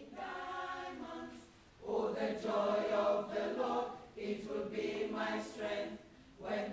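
A choir singing, in phrases of about two seconds with brief breaks between them.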